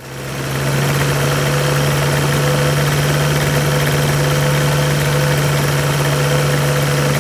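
Rotax 582UL two-stroke twin on an ultralight trike comes up to a steady run within the first second, then idles evenly with its propeller turning. This is the warm-up run on fresh premix after its contaminated carburetors were cleaned.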